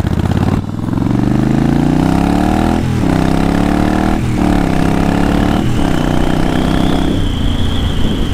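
Yamaha Virago cafe racer's V-twin engine accelerating through the gears: the revs climb, drop back at upshifts about three, four and a half and six seconds in, then level off at a steady cruise. A thin high whistle joins in over the last few seconds.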